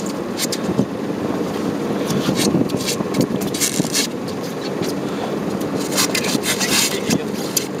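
Boat engine running steadily under way, with several short bursts of hiss over it.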